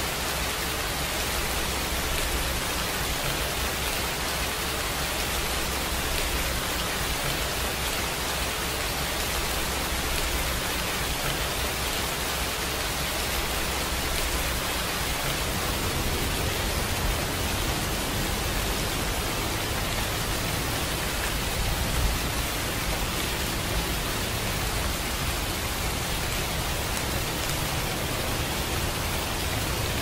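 Steady rain falling, an even hiss with no breaks, and one brief louder tap about two-thirds of the way through.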